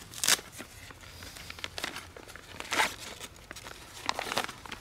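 Crinkling and rustling as a paper user guide is pulled out of a folding camping chair's side pocket, in several short bursts.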